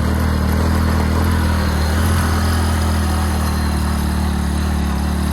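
Motorcycle engine running at a steady pitch while riding, with wind and road noise.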